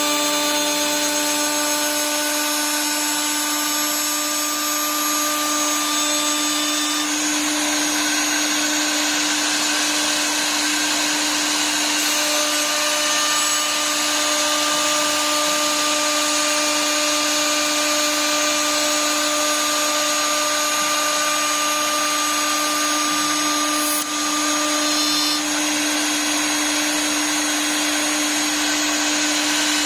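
CNC wood lathe's milling spindle running steadily while its cutter machines the wood workpiece under the automatic program: a steady whine over a constant noisy cutting sound, with one short click about 24 seconds in.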